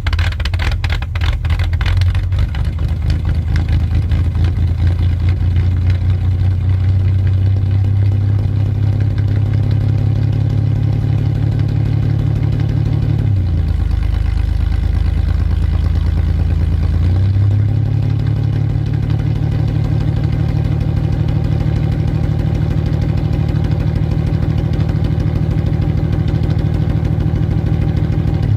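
1992 GMC Sonoma pickup's engine on a cold start, catching with uneven pulses at the start and settling into a steady idle. About halfway through the idle speed dips for a few seconds and then comes back up.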